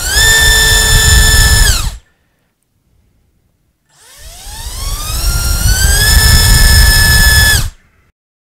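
Hyperlite V3 2206 2300kv brushless motor spinning a DAL 5040 four-blade prop on a thrust stand during full-throttle thrust pulls. It whines at full throttle and cuts off about two seconds in. After a two-second pause a second run-up rises steadily in pitch to full throttle, holds briefly and cuts off near the end.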